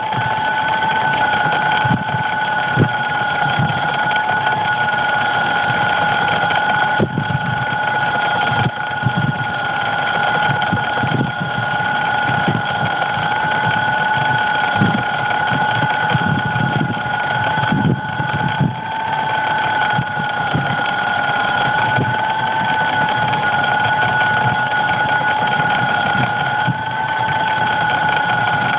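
Electric motors of a crashed DJI Phantom quadcopter still running, a steady two-tone whine that wavers slightly in pitch, with irregular low knocks throughout.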